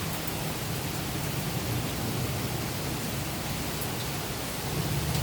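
Steady rain hissing during a thunderstorm. Near the end a low rumble of thunder begins to build.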